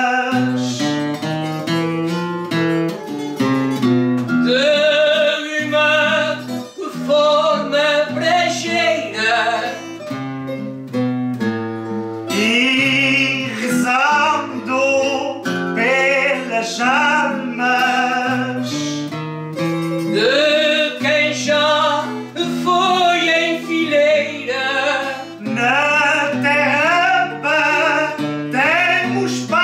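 A song: a singer with wide vibrato over plucked and strummed guitar accompaniment with a steady bass line.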